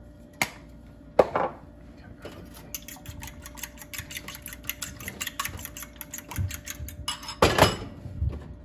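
A fork whisking beaten eggs in a bowl: quick, even clicking of metal against the bowl. A couple of sharp knocks in the first second or so come with the spice shaker, and a louder clatter near the end as the bowl is set down on the stovetop.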